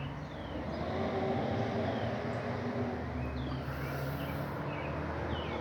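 Steady low hum of a vehicle engine, swelling a little about a second in, with birds giving short descending chirps now and then.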